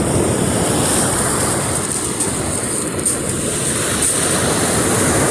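Black Sea waves washing on the beach, a steady rushing noise, with wind on the microphone.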